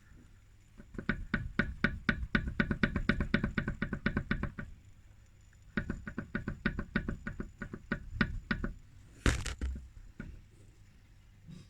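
Renault Scenic III CV joint knocking as the drive shaft moves back and forth along its axis: two runs of quick clacks, about six a second, the sign of axial play in the joint. A single louder clunk follows near the end.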